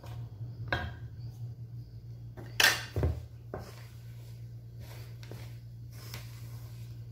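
Wooden spoon stirring sticky bread dough in a large metal bowl, knocking and scraping against the bowl's side in irregular strokes, loudest a little over two and a half seconds in. A low steady hum runs underneath.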